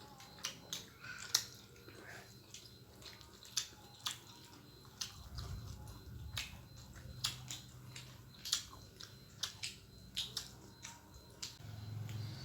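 Close-up eating sounds of a person chewing, with irregular sharp wet mouth clicks and smacks.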